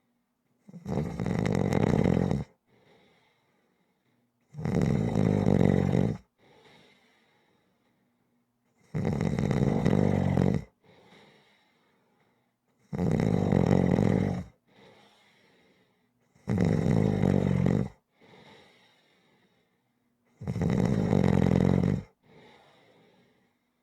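A person snoring in a slow, regular rhythm: six loud, low rattling snores, each about a second and a half long and coming roughly every four seconds, each followed by a faint short breath.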